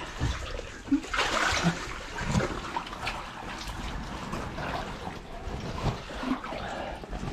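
Shallow water sloshing and splashing in irregular bursts as a person crawls on hands and knees through a flooded cave passage, with scattered knocks and short gurgles.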